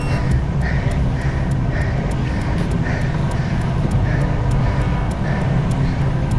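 Wind rumbling on the microphone of a moving road bike, with a faint regular pulse about twice a second.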